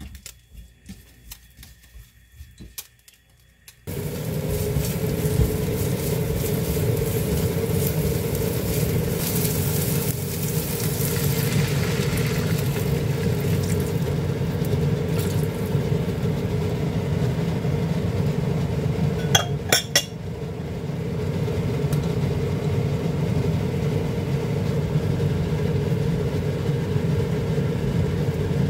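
A wooden spatula tapping and scraping in a non-stick frying pan, then about four seconds in a loud steady rushing noise starts suddenly and runs on, with a few sharp clinks a little past the middle.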